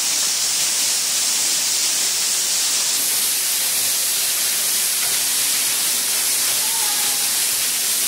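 A 35-foot underground waterfall in a cave chamber: a loud, steady rush of falling water.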